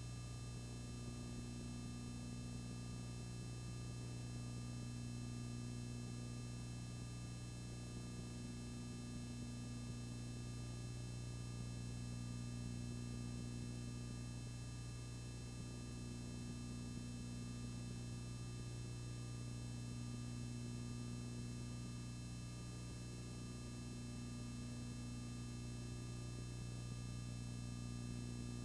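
Steady electrical hum with a few fixed overtones over faint hiss, unchanging throughout; no other sound.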